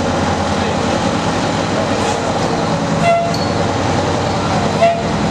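E-ONE Hurricane aerial ladder fire truck's diesel engine running steadily as the truck pulls slowly out, with two short squeals about three and five seconds in.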